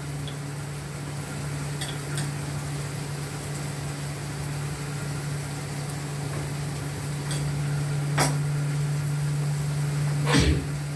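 A few sharp clinks and knocks of cooking utensils against a pot, the loudest about eight seconds in and about ten and a half seconds in, over a steady low hum.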